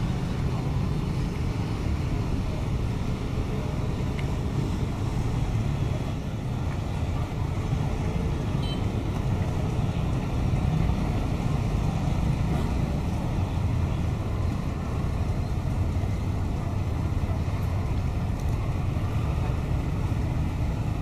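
Boat engine running steadily with a low rumble that holds the same level throughout.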